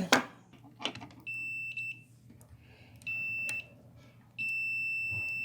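Multimeter continuity beeper sounding on a microwave door interlock switch: two short beeps, then an unbroken steady beep from about four seconds in. The switch stays closed when it should open, the sign of a faulty interlock switch.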